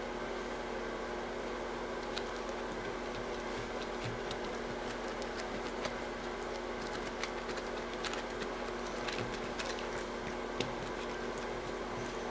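A steady electrical hum, with scattered faint soft ticks and dabs as a silicone pastry brush glazes the tops of freshly baked buns in a metal loaf pan.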